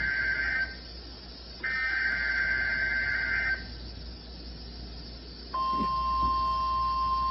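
Emergency Alert System SAME header data bursts: one warbling two-tone burst ends just after the start, and another follows, about two seconds long. About five and a half seconds in, the steady 1050 Hz weather radio alert tone starts, marking the start of a new alert message.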